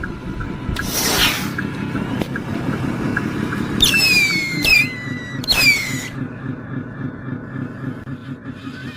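A model truck's motor and drivetrain run with a steady low pulsing hum and faint regular ticking. Three short high squeals fall in pitch between about four and six seconds in.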